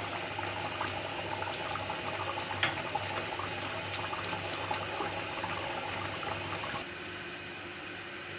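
Chicken and potato curry bubbling in an open frying pan on a gas burner: a dense steady crackle of small bubbles popping. Near the end it cuts off abruptly and a quieter steady background remains.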